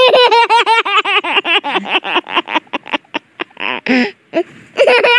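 A baby laughing in a quick run of high-pitched "ha" bursts that breaks off about three seconds in, with a few catches of breath, then a fresh run of giggles near the end.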